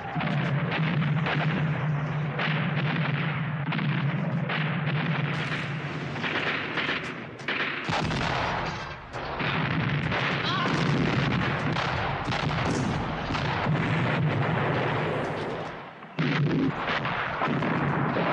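Artillery barrage from old wheeled field guns: guns firing and shells exploding in quick, overlapping succession over a steady low drone. There is a brief lull about eight seconds in and another near sixteen seconds.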